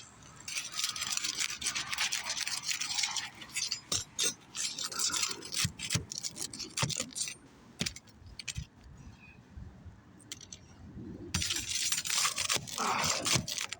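Asphalt roof shingles being worked loose by hand: irregular scraping, crackling and gritty rubbing as the sealed tabs are broken free and the shingles are lifted against their nails. The sound goes quieter for a few seconds in the middle, then picks up again.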